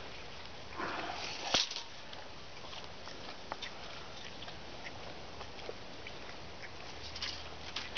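A sow grunting briefly about a second in as she roots in the grass, followed at once by a single sharp click, then faint scattered ticks and a short rustle near the end.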